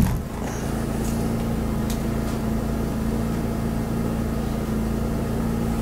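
Steady low machine hum with a constant drone that does not change.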